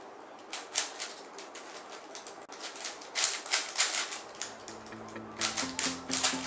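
3x3 plastic puzzle cube being turned rapidly in a speedsolve: a quick, uneven run of clicks and clacks as the layers snap round. Music comes in faintly underneath in the second half.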